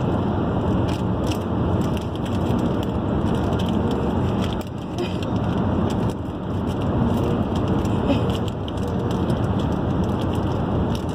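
Steady road and engine noise inside a moving car's cabin, with irregular crinkling of a foil Doritos chip bag being handled.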